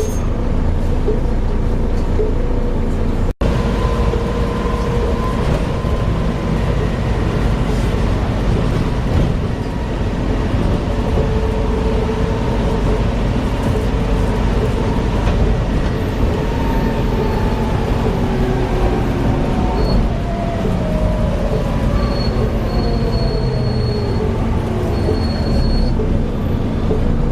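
Inside a Volvo B7TL double-decker bus under way: a steady drivetrain rumble with a whine that glides down in pitch through the second half as the bus slows. The uploader puts the bus's strange noises down to a bad differential.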